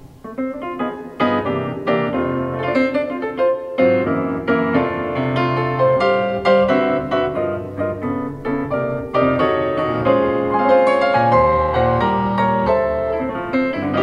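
Solo piano playing: struck notes and chords ringing over one another in a flowing line, with low bass notes coming back in about four seconds in.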